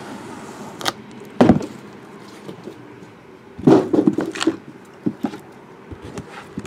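Shrink-wrapped trading-card boxes being handled and set down on a table: a knock about a second and a half in, then a cluster of knocks and handling noise around four seconds in, with a few lighter clicks.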